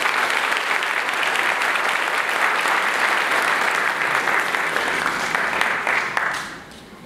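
Audience applauding, which dies away near the end.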